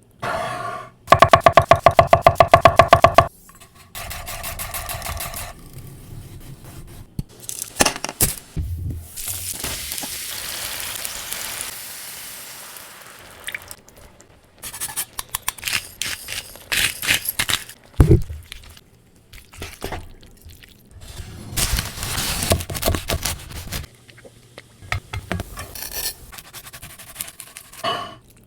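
A sequence of close-up cooking sounds for mushroom fettuccine Alfredo. A loud, fast run of sharp regular strokes comes about a second in, a steady hiss runs from about a third of the way through, and scrapes, knocks and stirring noises follow.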